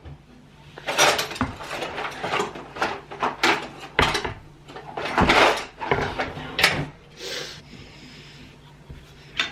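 Kitchen utensils clattering and knocking together as they are rummaged through, a busy run of sharp knocks and rattles that eases off after about seven seconds.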